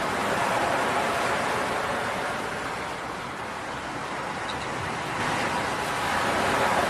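Ocean waves washing in, a steady rushing noise.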